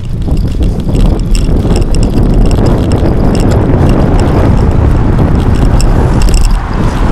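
Steady low wind and road rumble on a bike-mounted action camera's microphone as the bicycle rides along, with frequent light rattles and clicks from the shaking camera mount and bike. Car traffic runs on the road alongside.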